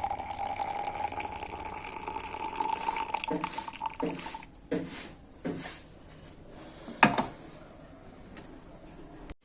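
Liquid pouring in a steady stream with a slowly rising tone for about four seconds, typical of a hot tulsi decoction being poured into a cup. Then a few short knocks and clatters of utensils, the loudest about seven seconds in.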